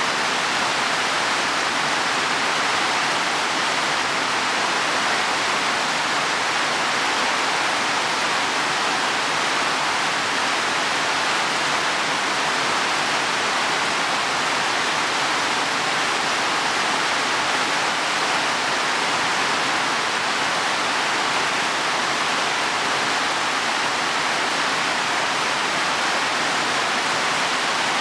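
Heavy rain falling steadily on leaves and soil, a dense, even hiss with no breaks.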